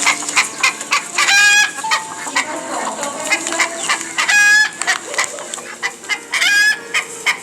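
Chickens clucking in quick short notes, with three longer drawn-out calls standing out, a little over a second in, about four and a half seconds in and about six and a half seconds in.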